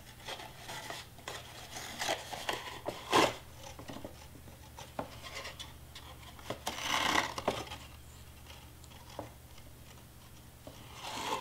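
Twine being wound, pulled and tied around a folded cardstock box, rubbing and rustling against the paper. There are light handling clicks throughout, with longer rubbing noises about 3 seconds in and again around the middle.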